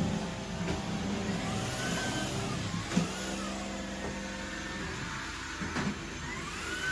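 Household vacuum cleaner running, its motor whine rising and falling every couple of seconds, with a few short knocks.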